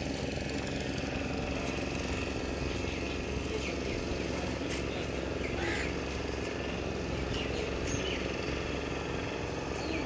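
A steady low engine rumble runs unbroken, with a few faint chirps above it.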